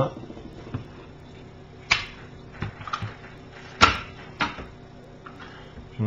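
Hard plastic clicks and knocks as a dishwasher's plastic control module and front fascia panel are handled and set down on a wooden table. There are a few sharp ones, the loudest about two and four seconds in.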